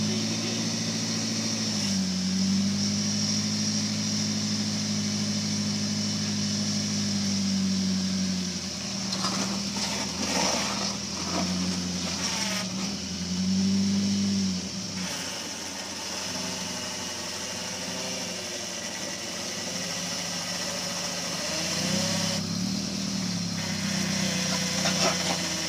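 Rock crawler's engine running at low revs, its pitch rising and falling several times as the throttle is worked against a rock ledge. A few short clatters come about ten seconds in and again near the end.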